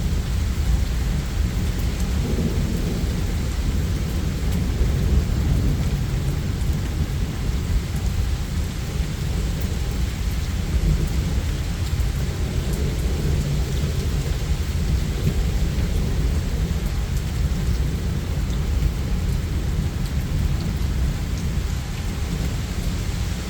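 Steady rain with continuous low rolling thunder, swelling a little now and then.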